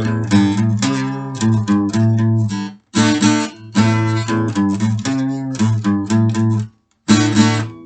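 Instrumental passage of a rock song: strummed guitar chords over a bass line, with no singing. The music cuts out abruptly twice for a moment.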